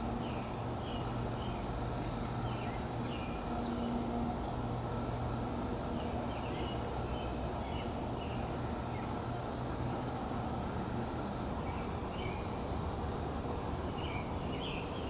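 Small birds chirping on and off, with three short high trills, over a steady low hum.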